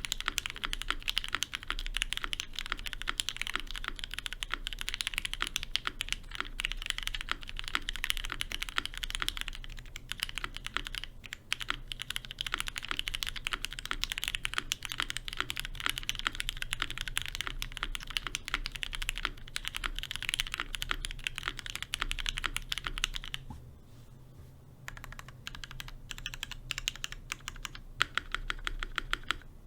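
Fast continuous typing on a GMMK Pro mechanical keyboard with lubed Cherry Hyperglide switches and ePBT ABS keycaps: a dense stream of key clacks. It breaks off for about a second and a half near the end, then resumes. A faint steady hum runs underneath.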